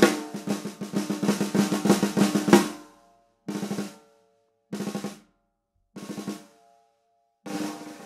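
Pearl Session Studio Select 14x5.5-inch snare drum, with a birch-mahogany shell and coated heads, played with sticks. A fast roll builds to a loud accent about two and a half seconds in and rings out. Then come three short rolls about a second apart, and a soft roll starts near the end.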